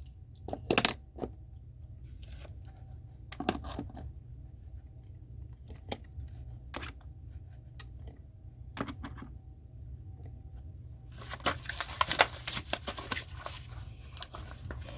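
Plastic and cardboard packaging of a die-cast toy car being handled and opened: a few scattered clicks and knocks, then from about eleven seconds in a dense run of crinkling and tearing.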